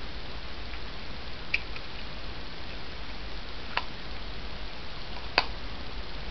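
Steady room hiss with three short sharp clicks, roughly two seconds apart, the last the loudest.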